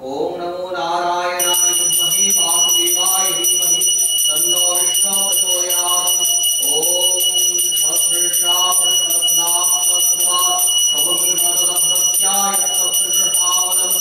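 A puja handbell rung continuously from about a second and a half in, a steady high ringing with a fast shimmer. Under it a voice chants mantras in a rising and falling melody.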